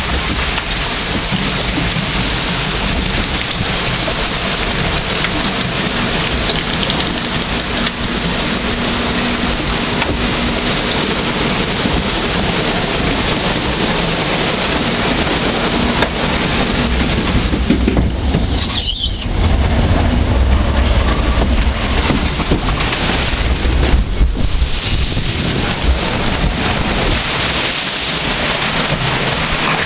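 Log flume boat riding through its water channel: a steady rush of flowing and splashing water, with a deeper rumble from about twenty seconds in.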